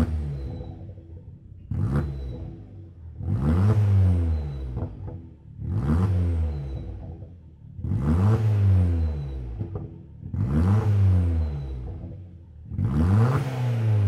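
Opel Corsa OPC's 1.6-litre turbocharged four-cylinder, straight-piped with the rear muffler deleted, free-revved while standing still. It gives about six revs a couple of seconds apart, each climbing in pitch and dropping back to idle.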